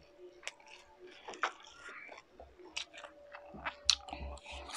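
Close-up mouth sounds of eating: chewing with wet smacks and sharp little clicks, and a mouthful of pancit canton noodles taken in by hand near the end.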